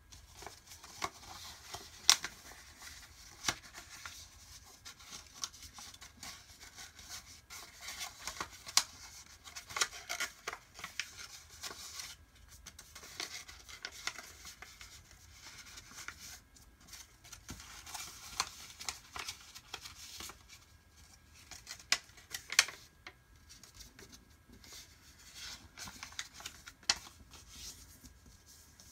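A sheet of paper being folded and creased by hand: on-and-off rustling with a few sharp, crisp snaps as the folds are pressed.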